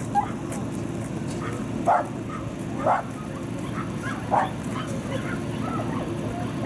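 A dog barking: three short, sharp barks spaced about a second apart, with a few fainter yips around them.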